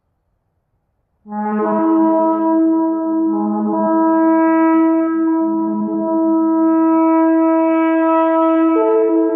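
One long shofar blast begins about a second in and holds a steady pitch, then jumps up to a higher note near the end.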